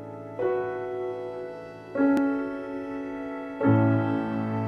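Slow, gentle piano music: three chords struck a second and a half or so apart, each left to ring and fade.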